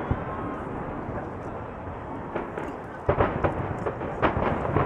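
Aerial firework shells bursting over a continuous low rumble. About three seconds in comes a quick run of four or five sharp booms.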